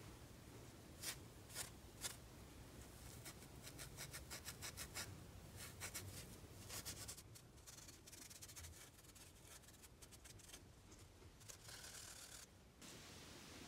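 Abrasive scouring pad rubbed against the metal body of an outboard fuel injector to clean off dirt: faint scrubbing strokes, a few separate ones at first, then a quick run of them in the middle, thinning out toward the end.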